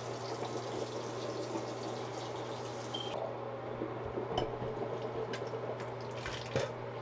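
Tap water running into a sink; the rush cuts off about three seconds in, followed by a few sharp knocks and clicks, the loudest near the end. A steady low hum runs underneath.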